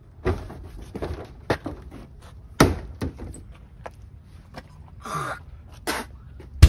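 A plastic portable toilet door swinging open and banging shut: several sharp knocks and thuds, the loudest about two and a half seconds in.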